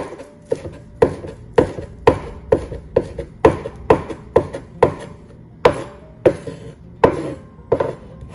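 A kitchen knife chopping green onions on a wooden cutting board: sharp knocks of the blade striking the board about twice a second, spacing out toward the end.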